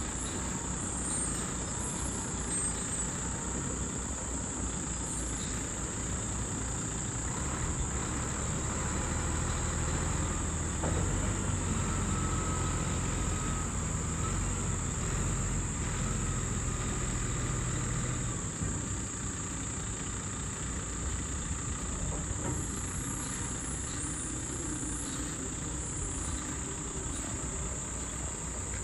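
Tatra 8x8 truck's diesel engine running at low revs as the truck crawls over uneven rock, pulling harder for several seconds midway. A steady high shrill of insects runs underneath.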